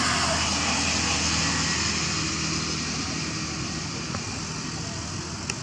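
Steady rushing background noise with a low hum underneath, slowly fading; a single sharp click near the end.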